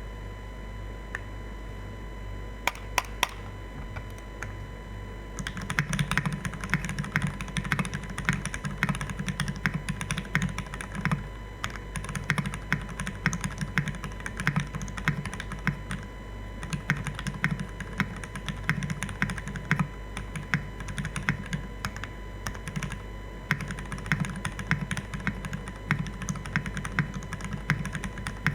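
Typing on an Aksara CE mechanical keyboard with lubed Cherry MX Black Hyperglide linear switches, PBT keycaps and a top-mounted aluminium plate: a few single keystrokes, then steady continuous typing from about five seconds in, with short pauses. A steady low electrical hum sits underneath.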